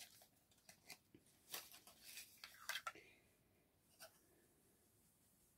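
Faint clicks and rustles of a cosmetic product and its packaging being handled, most of them in the first three seconds, with one more click about four seconds in.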